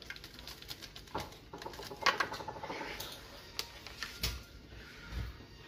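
Seasoning packet crinkling and taco seasoning pattering onto a foil tray, with scattered clicks and taps on the foil and two low knocks in the second half.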